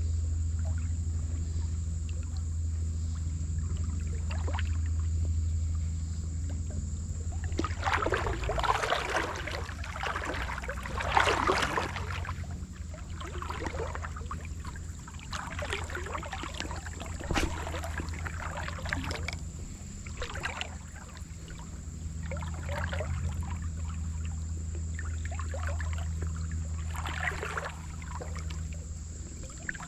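River water splashing and sloshing in uneven bursts, loudest for a few seconds about a third of the way in, over a steady low rumble.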